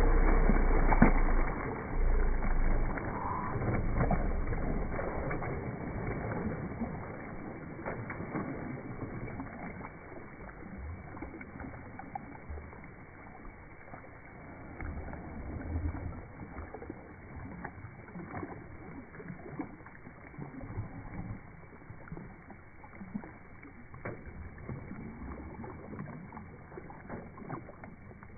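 German Shepherd swimming in a pool, its paws churning the water. It splashes loudest in the first couple of seconds, then the water sounds grow quieter as it paddles on more calmly.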